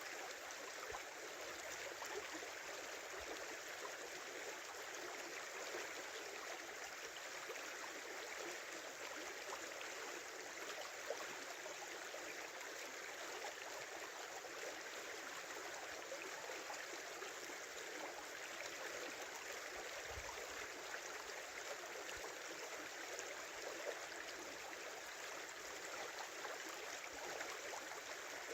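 A small river flowing, with a steady rush of running water.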